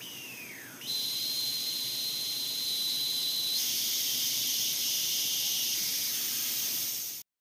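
A hissing, whistling sound effect over the title card. A high whistle falls in pitch over the first second and a steady high whistling tone follows over hiss. After about three and a half seconds the tone gives way to a louder, fuller hiss, which cuts off abruptly near the end.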